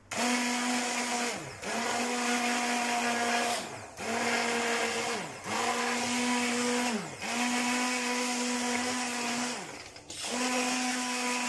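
Electric blender run in about six short pulses of one to two seconds each. Its motor whine holds steady while it runs and drops in pitch as it spins down between pulses. It is blending thick, freshly cooked condensed milk to break up lumps.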